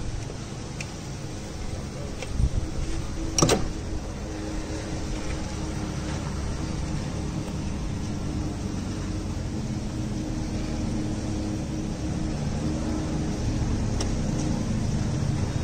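Steady low mechanical rumble with a faint hum, like a nearby engine or machine running, with one sharp knock about three and a half seconds in and a few faint ticks of tool handling.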